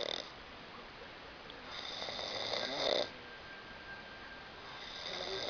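A man snoring loudly, each snore a noisy breath lasting about a second: one ends just as the sound begins, a full one comes about two seconds in, and another starts near the end.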